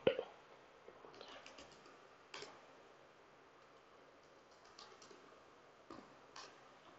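Faint typing on a computer keyboard: scattered key clicks in short runs, with pauses between them.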